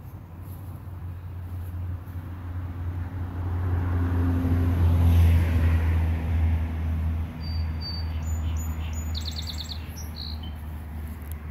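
A motor vehicle driving past, its engine and road noise swelling to a peak about halfway through and then fading. A small bird chirps a few high notes in the second half, ending in a quick run of notes.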